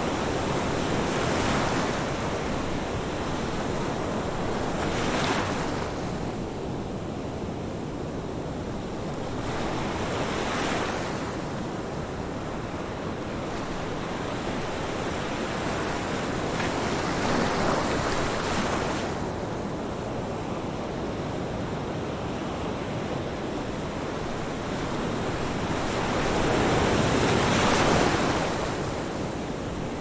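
Ocean surf: a continuous rush of breaking waves and foam washing in, swelling louder every several seconds as each breaker crashes, with the biggest surge near the end.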